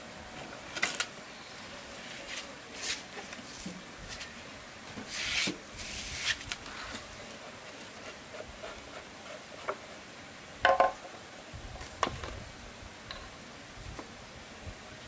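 Handling noises from a petrol grass trimmer being worked on by hand: scattered knocks, scrapes and rustles, with a louder clink that rings briefly about eleven seconds in. The engine is not running.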